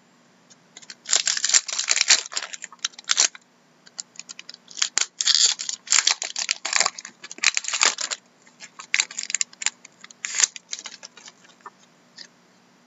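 A foil trading-card pack wrapper from 2012-13 Fleer Retro hockey being torn open and crinkled by hand, in three bursts of rustling. Near the end come lighter clicks as the cards inside are handled.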